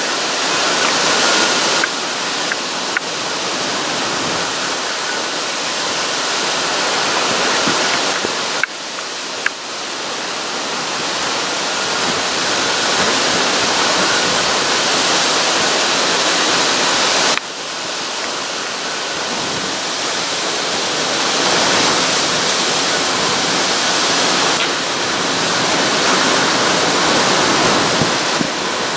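Hurricane-force wind and driving rain in a hurricane eyewall, a loud, continuous rushing that swells and eases with the gusts. The level changes abruptly twice, about 9 and 17 seconds in.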